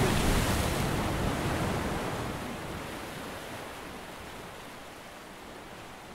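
Sea surf washing against a rocky shore, an even rush that fades steadily.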